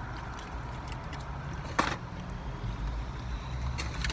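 Steady low rumble of a parked car running with its air conditioning on, with one sharp knock about two seconds in and a few faint ticks near the end.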